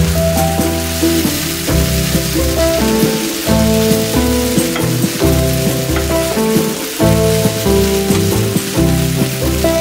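Background music with a steady bass line, over rice and kimchi sizzling in a nonstick frying pan as a wooden spatula stirs and scrapes it.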